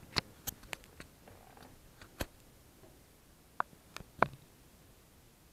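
Irregular sharp clicks and taps from a kitten's claws and paws on a tile floor, about eight in all, with the loudest knock a little after four seconds in.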